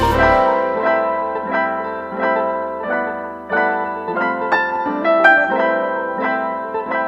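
Background music: piano notes and chords struck at a steady, unhurried pace, with a low bass note fading out in the first half second.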